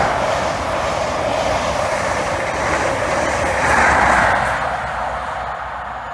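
Train passing at speed: a steady rushing noise of wheels on rails that swells again about four seconds in, then fades as it draws away.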